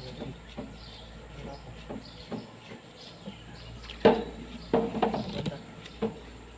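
Tractor front-hub parts being washed by hand in a tray of liquid: splashing, with metal parts clinking and knocking against each other and the tray, sharpest in a cluster of knocks about four to five seconds in.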